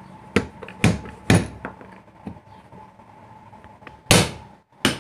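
Metal parts of a Mahindra 575 tractor's starter motor knocking together as the yoke housing is seated over the armature: sharp knocks, three in the first second and a half, a few lighter taps, then two louder knocks near the end.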